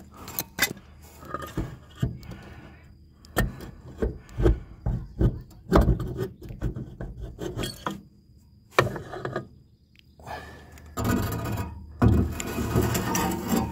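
Tailshaft extension housing of a TorqueFlite automatic transmission being worked free and slid off the output shaft: a series of irregular metal knocks and clunks, then a longer stretch of rubbing and scraping near the end.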